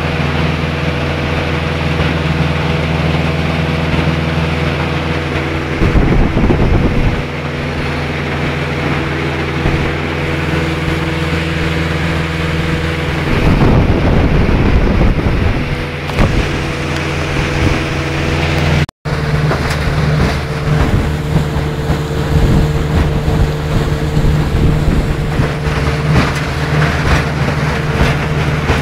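Vikhr two-stroke outboard motor running steadily under way on a Krym motorboat, with rushing wind and water noise swelling twice in the first half. The sound cuts out for an instant a little past halfway, then the motor carries on.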